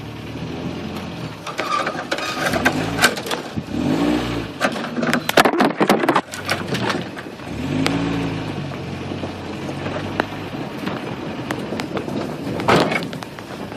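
1987 Toyota 4Runner's engine revving up and easing off twice as it crawls over a rutted, muddy trail. Scattered knocks and scrapes come from the truck jolting over the ruts, thickest in a burst around the middle.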